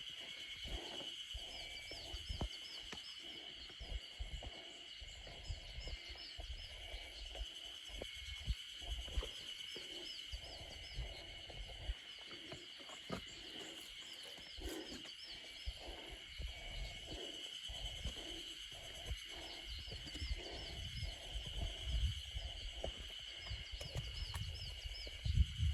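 Forest ambience on a mountain trail: a steady high insect drone with repeated short runs of high chirping, over irregular low footfalls and knocks, heavier near the end.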